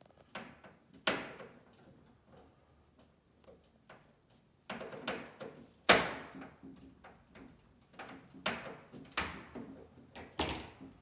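A series of sharp knocks and clunks, each with a short ringing decay, the loudest about six seconds in, with fainter rattles in between.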